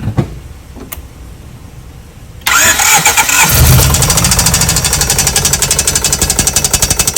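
A 1995 Honda Civic engine is cranked by the starter about two and a half seconds in and catches a second later. It then runs with a rapid, even knock, which the mechanic takes for a rod bearing noise.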